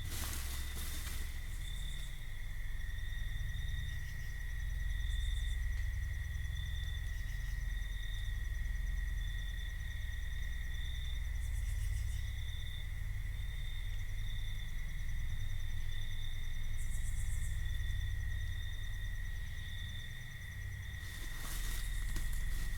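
Night insects calling steadily, crickets or katydids: one keeps up a continuous high trill while another chirps in regular pulses at about one a second, over a steady low rumble. A short burst of noise sounds at the start and again near the end.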